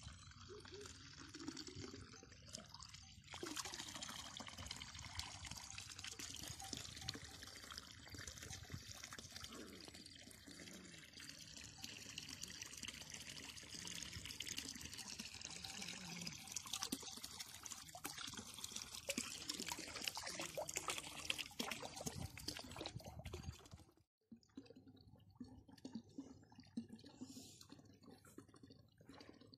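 Water pouring and splashing steadily, as when a floor is washed down. After a sudden break about 24 seconds in it turns to quieter dripping.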